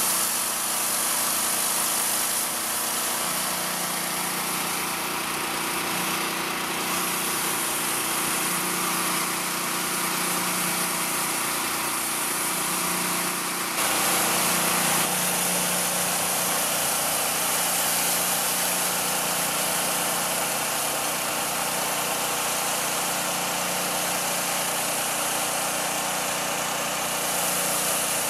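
Petrol engine of a Hyundai HYW4000P 4000 psi pressure washer running steadily under load, with the hiss of high-pressure water spraying from a rotary flat-surface cleaner onto paving. The engine tone and hiss shift slightly about halfway through.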